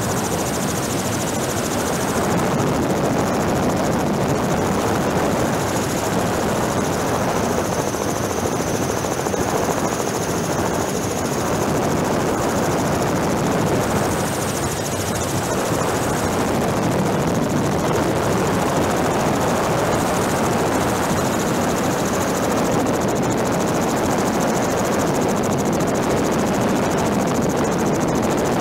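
Helicopter running steadily, its rotor and engine noise heard from on board as a dense, even din. A faint high whine sits above it through the first half.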